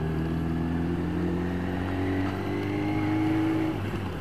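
Yamaha YZF 1000cc motorcycle's inline-four engine pulling steadily at low revs, heard from on board, its pitch rising slowly as the bike gathers speed. Near the end the throttle is eased off and the engine note drops and quietens.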